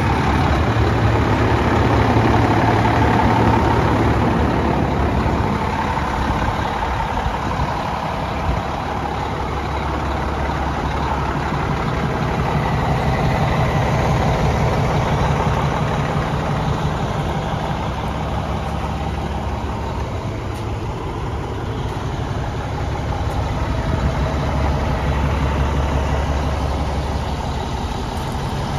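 Diesel engine of an International 8600 day cab tractor idling steadily, a low continuous rumble that grows and fades slightly in level.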